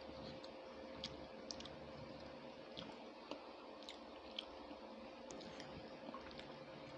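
Faint chewing of a mouthful of rice and curry, with scattered light clicks of a metal serving spoon against a glass bowl and plate, over a faint steady hum.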